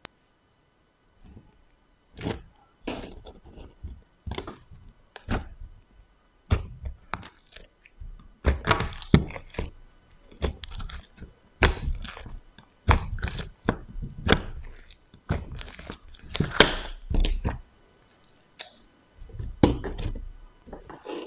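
Soft fluffy slime being squeezed, poked and pulled apart by hand, giving irregular squishing and short sharp popping sounds that come thickest in the middle stretch.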